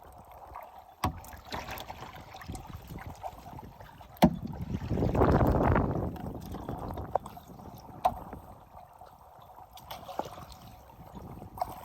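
Kayak paddling picked up by a phone on board: a few sharp knocks, and a loud rushing swell of water noise a little before the middle.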